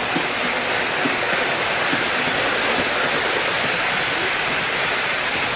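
Container wagons of an HO-scale model freight train rolling past close by on a curve: a steady rushing rumble of metal wheels on the track.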